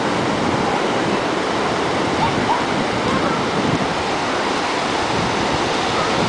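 Ocean surf washing up a shallow sandy beach: a steady rushing noise.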